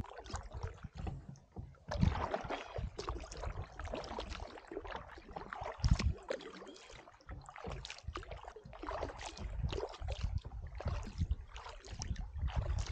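Canoe paddled with a double-bladed paddle: the blades dip and pull through the water in uneven strokes, with splashing and dripping from the blades. A low rumble of wind on the microphone runs underneath, and a sharper, louder splash or knock comes about two and about six seconds in.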